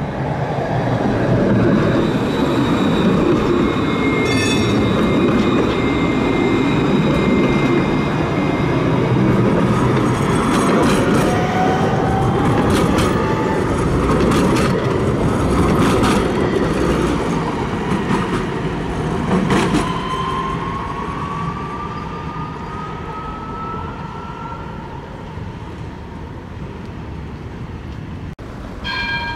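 Electric tram passing close by on street track: a steady running noise with a high ringing wheel squeal in the first few seconds and clicks over the rail joints. Twice the traction motors give a rising whine as it accelerates, and the sound fades after about 20 seconds.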